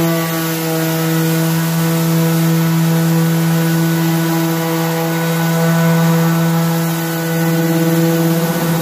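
Milwaukee random orbital sander running steadily on a bare wooden stool seat: a loud, even motor hum over the hiss of the pad on the wood, the pitch sagging slightly near the end.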